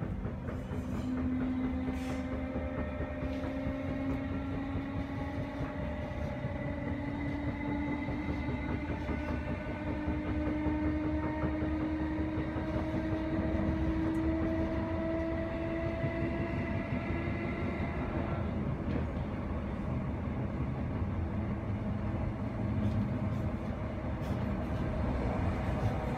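Class 319 electric train heard from inside its motor coach: the whine of the DC traction motors rises slowly as the train picks up speed over a steady rumble of wheels on track. About eighteen seconds in, the whine cuts off, as power comes off and the train coasts, leaving only the running rumble.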